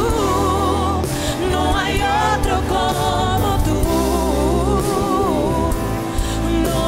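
Live gospel worship music: several singers singing with wavering, held notes into microphones over a keyboard band with sustained bass notes.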